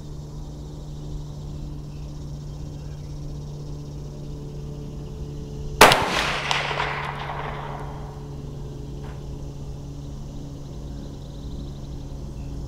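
A single shot from a Mossberg 640K Chuckster bolt-action .22 Magnum rifle about six seconds in, a sharp crack followed by an echo that dies away over about two seconds.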